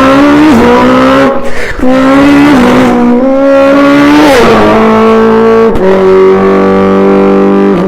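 A man imitating a car engine with his voice, a buzzing tone that climbs in pitch and drops back several times like an engine shifting up through the gears, then holds one long steady note near the end.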